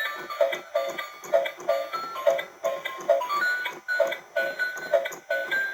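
Bright electronic jingle: a simple high melody over a repeating pattern of short low notes in pairs.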